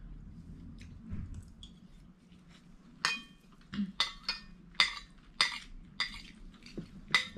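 Metal spoons and forks clinking and scraping on ceramic plates as two people eat. Quiet for the first few seconds, then a run of sharp ringing clinks, about two a second.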